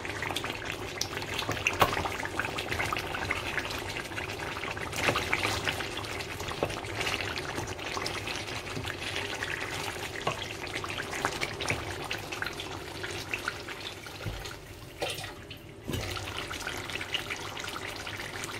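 A pot of pork and tomato stew simmering, many small quick bubbles popping over a steady watery hiss as the sauce cooks down. The bubbling drops away for a moment near the end, then carries on.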